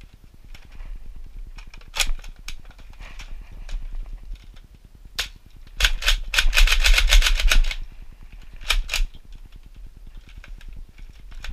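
Plastic clicks and rattles of a Nerf Modulus Tri-Strike blaster being worked by hand while its magazine is jammed: a few single clicks, a dense rattling run about six seconds in, then two more clicks.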